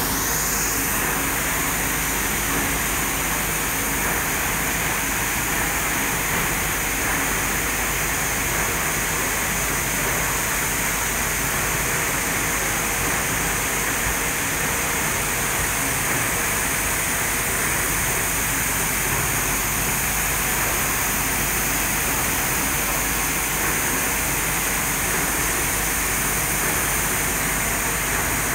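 Rice blending machine running: an even, unbroken mechanical hum and hiss that holds steady throughout.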